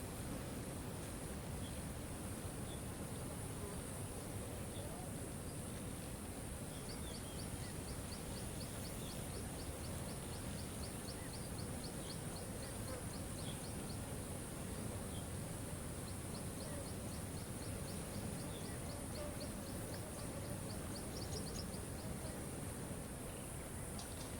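Waterfall rushing steadily under a high steady hiss, with two spells of a rapid ticking trill, one from about seven seconds in and one after about sixteen seconds, and a few faint scattered bird chirps.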